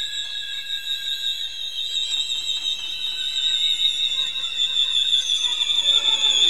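Contemporary chamber-orchestra music: several very high, sustained tones held together, the highest wavering slightly. One lower tone drops out about a third of the way through, and lower sounds gather and grow louder near the end.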